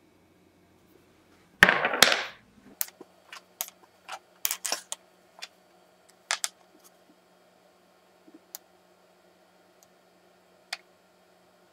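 Handling of gel nail polish bottles and plastic swatch tips. One loud scraping burst lasts nearly a second, about two seconds in, followed by a scatter of small clicks and taps as a bottle cap is unscrewed and a swatch tip is painted.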